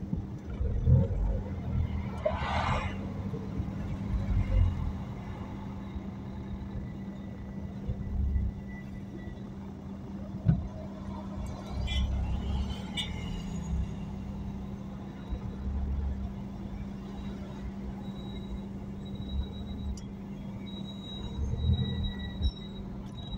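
Cars idling in a stop-and-go traffic jam: a steady engine hum with low rumbles of vehicles creeping forward, and a short hiss about two and a half seconds in.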